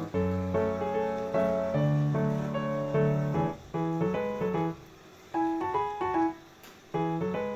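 Background piano music, a light melody over held lower notes, with a couple of short breaks.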